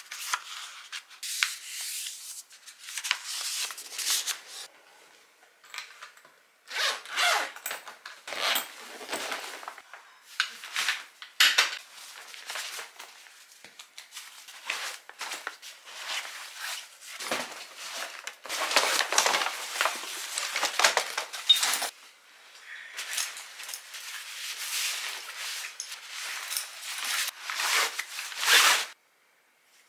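Paper rustling as a letter is handled, then the rustle and scrape of nylon camping gear, bags and straps being packed into a suitcase and a backpack, in uneven bursts with short pauses.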